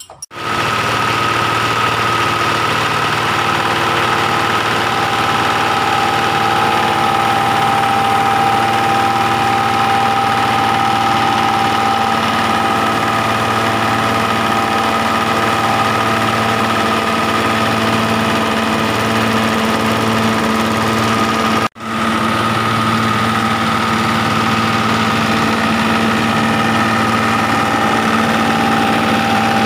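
Rice-husk grinding mill driven by a small stationary engine, running steadily as it grinds rice husks, with a steady whine over the engine's hum. The sound cuts out for a moment about two-thirds through, then carries on.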